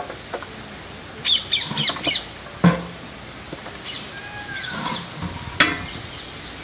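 Birds calling: a quick run of short, squawking high-pitched calls about a second in, and a fainter rising-and-falling call around four to five seconds in. Two sharp knocks come in between.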